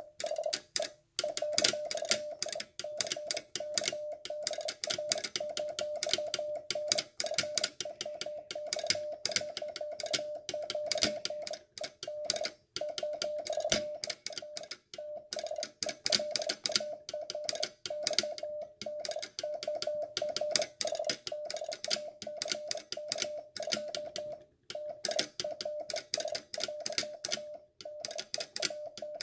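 1930s McElroy Mac Key semi-automatic telegraph key (bug) sending Morse code, its dot pendulum set to the slowest speed. A steady beep tone switches on and off in dots and dashes over the rapid metallic clicking of the key's contacts, with a few short pauses between groups.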